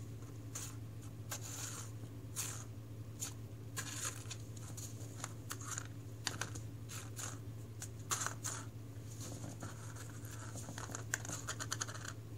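Cat batting and pawing plastic iced tea cap rings about the floor of a cardboard box: irregular light scratches, taps and clicks of claws and plastic rings on cardboard.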